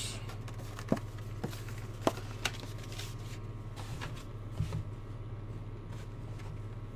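A cardboard trading-card box and its foil jumbo packs being handled: a few light clicks and taps in the first few seconds and a soft knock later. A steady low hum runs underneath.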